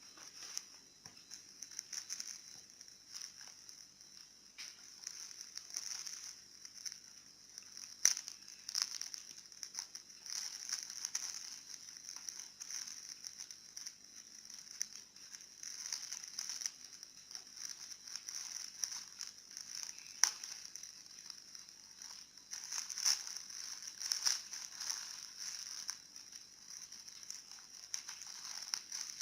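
Plastic parcel packaging crinkling and rustling as it is handled and opened, with a few sharp snaps along the way.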